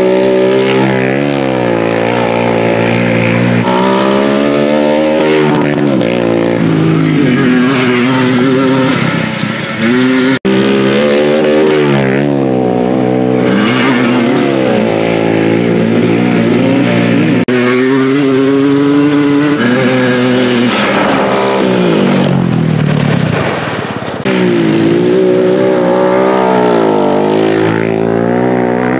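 ATV engines revving hard on a trail race, the pitch climbing and dropping over and over with throttle and gear changes. The sound cuts out sharply for a moment about ten seconds in.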